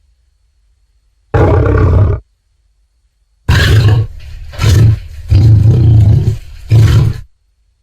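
Tyrannosaurus rex roar sound effects: one short roar about a second and a half in, then after a pause a longer run of about four roars in quick succession that stops shortly before the end.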